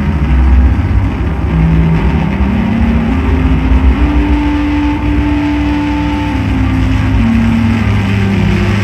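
Loud electronic drone-noise music: a deep sustained bass rumble under dense hiss, with a held tone that steps up in pitch over the first few seconds and then steps back down.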